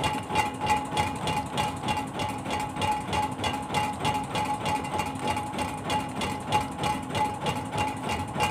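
Fishing boat's engine idling with a steady, even pulse of about four beats a second.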